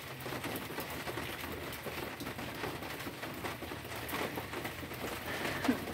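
Rain falling and dripping on garden foliage, a steady haze of faint ticks, with a bird calling in the background.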